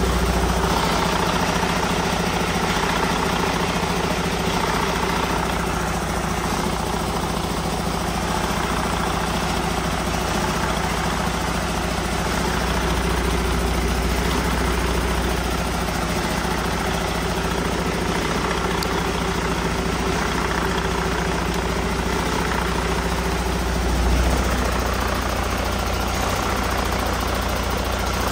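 2018 Detroit Diesel DD13 12.8-litre inline-six diesel, out of the truck as a loose engine assembly, idling steadily, with one brief swell late on.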